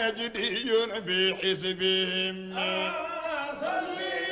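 A man's voice chanting Arabic religious verse in a slow, melismatic style. The voice slides between notes, then holds one long steady note, and begins a new phrase near the end.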